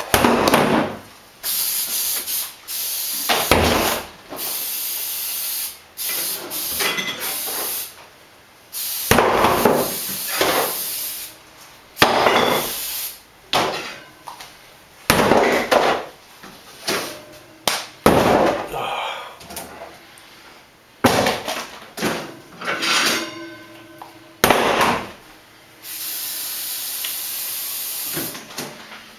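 Kitchen cleaning noises: a long run of knocks and clatters as things are handled and moved, mixed with hissing rushes of about a second each and a steadier hiss near the end.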